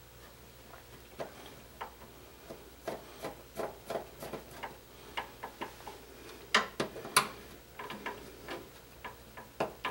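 Small screws being set and tightened with a screwdriver into a graphics card's bracket on a PC case's expansion-slot rail: a run of irregular light clicks and scrapes of metal, with two louder clicks about two-thirds of the way through.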